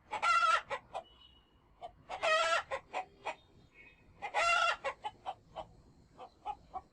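Chickens calling: three loud drawn-out squawks about two seconds apart, with short clucks in between.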